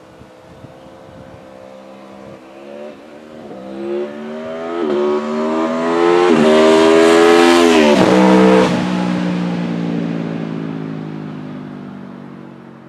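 A road vehicle accelerating past through the gears. Its engine pitch climbs and drops back at each of several shifts. It is loudest as it goes by about eight seconds in, then drops in pitch and fades away.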